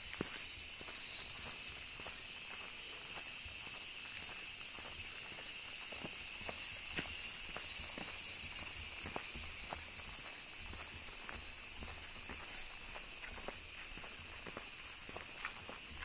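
A steady, high-pitched chorus of cicadas, swelling a little midway, over the regular footsteps of a person walking.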